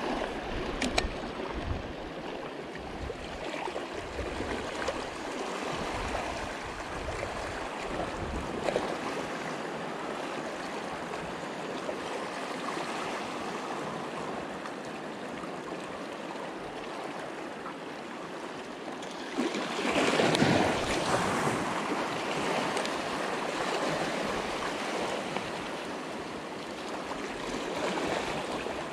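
Sea water washing and lapping against shoreline rocks, a steady wash with one louder surge of water about twenty seconds in.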